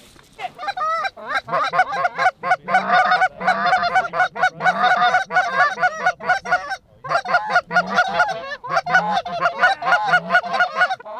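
Rapid, overlapping goose honks and clucks, many at once, with one short break about two-thirds through.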